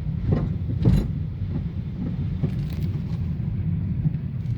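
Low, steady rumble of a car heard from inside the cabin, with a couple of short knocks, the loudest about a second in.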